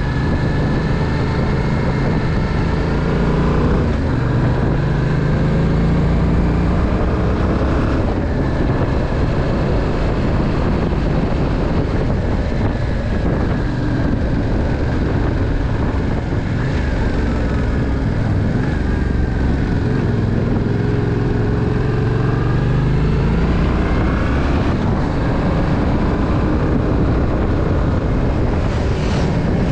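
Yamaha Tracer 700's parallel-twin engine running under way, its pitch rising and falling several times as the rider works the throttle and gears through the bends.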